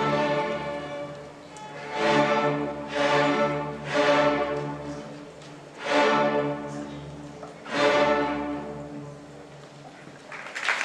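Large string orchestra of violins, cellos and double basses playing the ending of a Celtic fiddle tune. A held chord dies away, then five loud accented chords come at one- to two-second intervals, each ringing out and fading.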